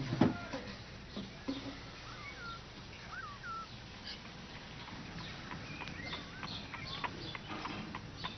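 Faint bird chirps: a few short notes that rise and fall, followed by a run of light clicks and taps.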